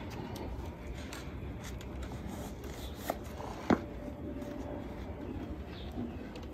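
Black ankle boots being handled and pulled on, with soft rustling and two short knocks about three seconds in, the second one sharper.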